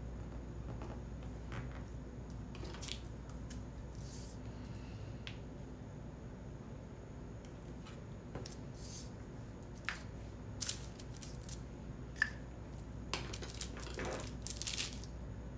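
Washi tape being handled, cut with scissors and pressed onto planner paper: scattered faint rustles and light clicks, then a cluster of sharper snips over the last five seconds or so.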